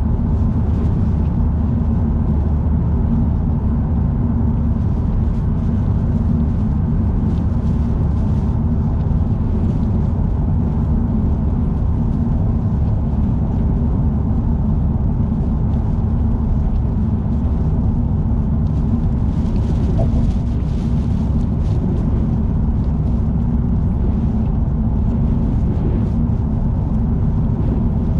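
Car cruising on an expressway: a steady, loud low rumble of road and tyre noise with wind.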